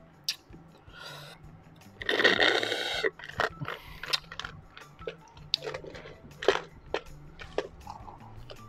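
A loud slurp through a straw, about a second long, as iced coffee is drawn from a small plastic cup that is running low. Light clicks and taps of the plastic cup being handled and set down follow.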